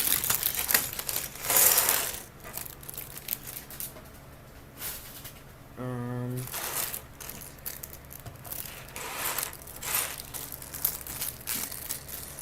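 Plastic bag of LEGO pieces crinkling as it is handled, in repeated bursts that are loudest in the first two seconds. About six seconds in there is a brief hum of a man's voice.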